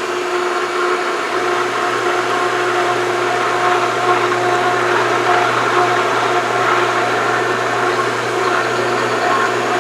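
Pool pump running steadily just after startup while it primes, a motor hum under the rush of water with a lot of air still mixed in.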